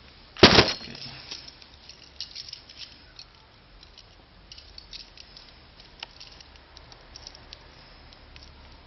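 Handling noise: a sharp rustle-and-knock about half a second in, then scattered small clicks and rustles.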